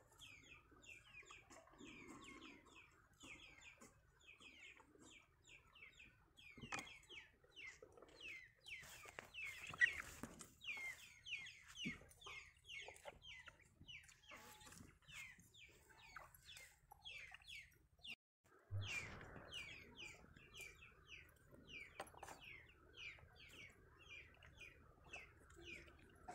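Chicks peeping faintly: a steady run of short, falling high-pitched chirps, two or three a second, with a few soft knocks and rustles about seven to twelve seconds in.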